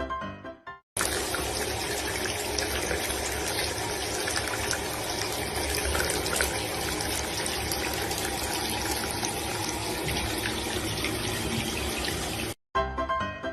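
A steady rushing noise, even and unbroken, starts about a second in and stops abruptly near the end. A snatch of piano music comes before it.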